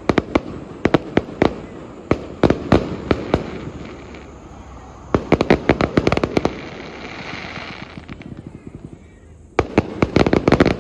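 Fireworks display: rapid volleys of sharp bangs, each volley lasting about a second, four times, with a softer hiss in the lull after the third volley.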